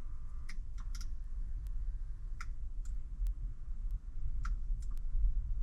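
Kia Sorento power side mirror switch being clicked repeatedly: about a dozen short, sharp clicks at irregular intervals as the freshly repaired switch is tested, over a low steady hum.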